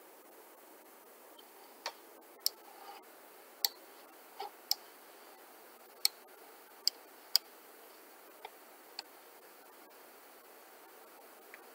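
Computer mouse clicking: about ten short, sharp clicks at uneven intervals over a faint steady hiss.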